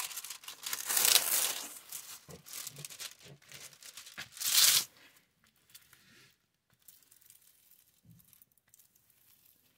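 Clear plastic film on a diamond painting canvas crinkling as hands press and bend the canvas flat. It comes in rustling bursts, loudest in the first two seconds and again briefly at about four and a half seconds, then only faint handling sounds.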